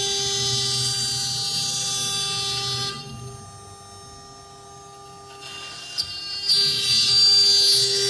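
Four-spindle CNC router cutting MDF: a steady spindle whine with a hissing cutting noise. About three seconds in the cutting noise drops away, leaving a fainter whine, and after a click about six seconds in it returns at full level.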